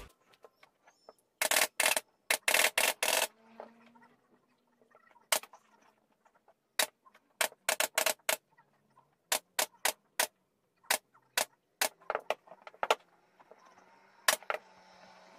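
Pneumatic upholstery staple gun firing staples to fasten new fabric onto a sofa arm: a rapid run of about eight sharp shots about a second and a half in, then single shots at irregular gaps of half a second to a second.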